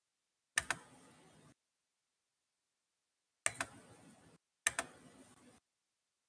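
Three short bursts of clicking, as from a computer keyboard, heard over a video-call line: each burst is a few sharp clicks followed by about a second of faint hiss, and the line cuts to dead silence between bursts.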